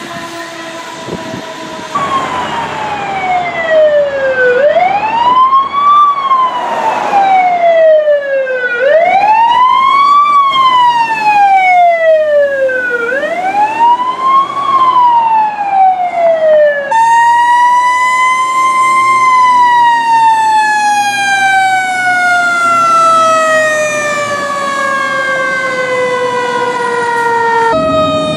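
Fire apparatus sirens in a run of separate clips. A held tone comes first, then a wail siren that slides down and sweeps back up three times, about every four seconds. After a cut, a long siren tone falls slowly for about ten seconds.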